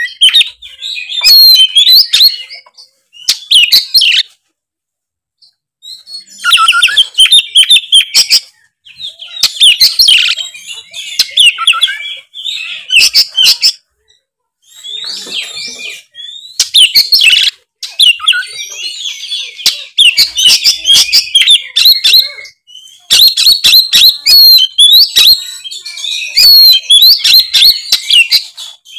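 Oriental magpie-robin (kacer) singing a loud, varied song of rapid whistles and chattering phrases, broken by short pauses, including one of about two seconds near the start.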